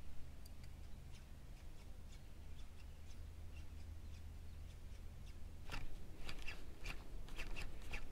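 Spinning reel and rod being worked during a fast jerkbait retrieve: a run of sharp clicks and rattles begins a little past halfway, over a low, steady rumble.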